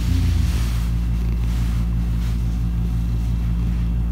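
Black house cat purring close to the microphone, a steady low rumble.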